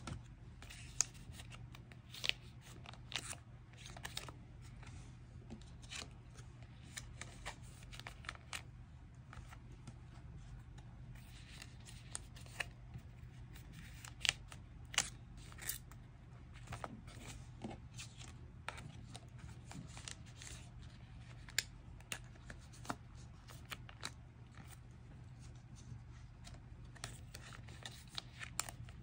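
Photocards being slid into the clear plastic sleeves of a small collect book: irregular crisp clicks and crinkles of stiff plastic pockets and card edges, over a steady low hum.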